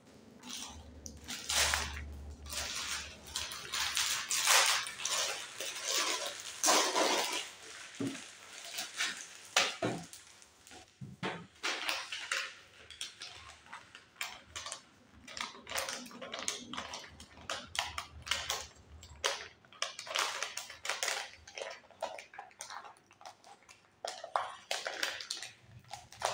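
Plastic wrapping and small parts packets from a Lego kit being torn open and handled: irregular crinkling and rustling with light clinks.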